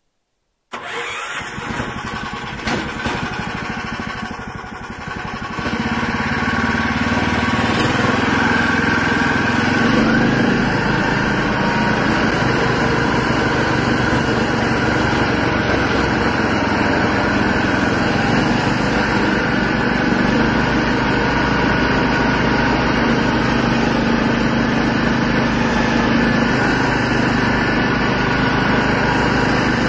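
Snowmobile engine running as it is ridden over snow, heard from the rider's seat. After a brief dropout at the very start it runs at moderate revs, gets louder about six seconds in, and then holds steady.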